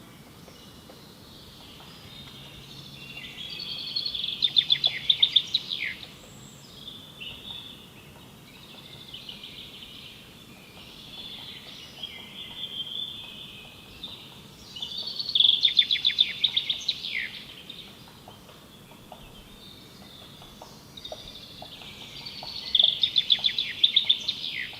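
A songbird singing: three loud song phrases, about four seconds in, about fifteen seconds in and near the end, each building into a rapid trill of fast repeated notes, with softer twittering between them.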